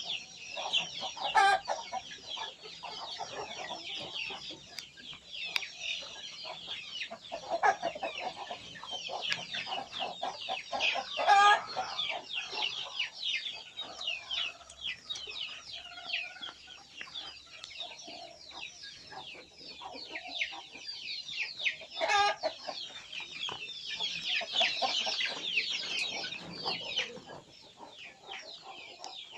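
Free-range village chickens clucking, with a few louder calls scattered through, over a dense high-pitched chirping.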